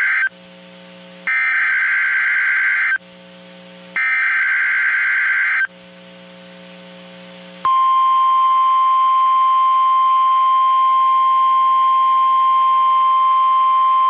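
NOAA Weather Radio emergency alert signal. The last moment of one SAME header burst of screechy data tones is followed by two more bursts of under two seconds each, about a second apart. About seven and a half seconds in, the steady high-pitched warning alarm tone starts, announcing a severe thunderstorm watch.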